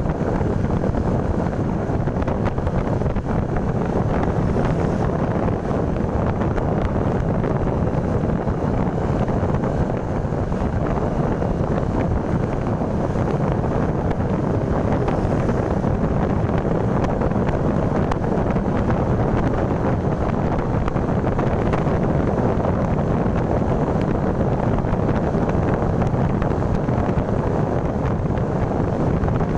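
Steady wind noise on the microphone over the running noise of a moving vehicle, unchanging throughout.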